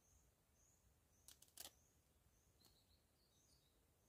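Near silence: a small bird repeats short high chirps about twice a second, with a couple of faint sharp clicks about a second and a half in.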